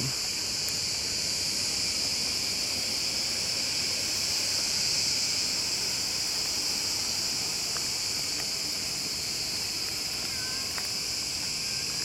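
Chorus of cicadas: a steady, high-pitched buzz that holds unbroken throughout.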